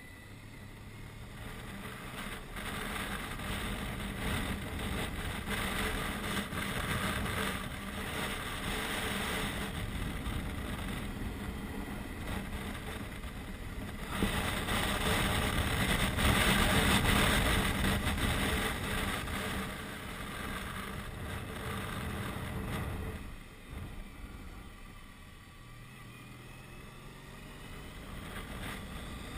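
Touring motorcycle riding a mountain road, heard from a helmet-mounted camera: the engine runs steadily under a rush of wind. It grows louder for a few seconds in the middle, then eases off for a couple of seconds near the end.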